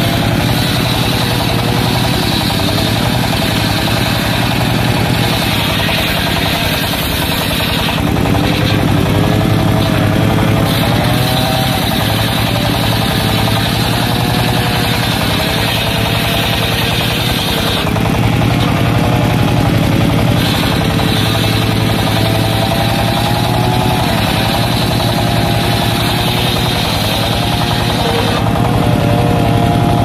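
Belt-driven sawmill circular saw ripping wooden planks, with the diesel engine that drives it running steadily underneath. The blade's whine wavers in pitch as the wood is fed, and the cutting hiss comes in three long cuts of seven or eight seconds each with short pauses between.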